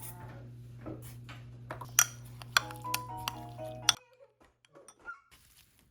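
Background music with several sharp clinks of kitchen tableware. The music stops about four seconds in, leaving only a few faint light clicks.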